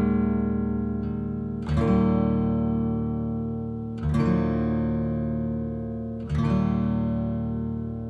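Acoustic guitar music: a chord strummed about every two seconds and left to ring out between strums.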